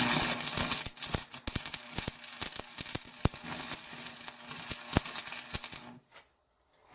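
Arc welder laying a weld bead: a dense, irregular crackle with a faint steady hum under it. It stops suddenly about six seconds in.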